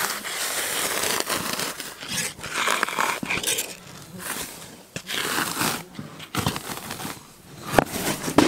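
A large sheet of bark being pried and peeled away from a freshly felled log with a wooden bark spud: repeated scraping, tearing and crackling as the bark parts from the wood, with a couple of sharp snaps near the end.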